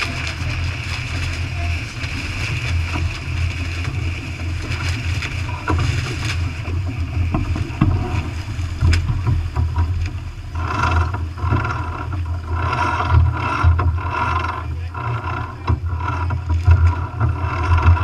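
Wind buffeting the microphone of a camera on a sailboat heeled under sail, with water rushing past the hull. From about ten seconds in, a louder broken sound comes and goes over the steady rush.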